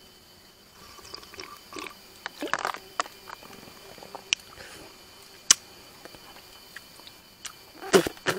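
A person biting into food and chewing it, with irregular short crunches and a few sharp clicks; the loudest burst comes near the end.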